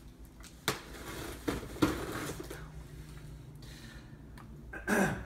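Metal fire poker jabbing and scraping at the taped seam of a cardboard box: a few sharp knocks in the first two seconds, then scraping, with a short louder sound near the end.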